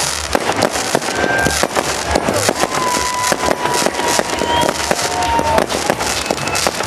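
Consumer fireworks battery firing, a dense run of crackling pops with a few drawn-out whistling tones over it.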